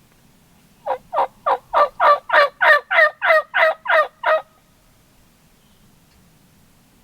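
A run of about twelve turkey yelps, about three a second, each note breaking downward in pitch, growing a little louder through the middle of the run.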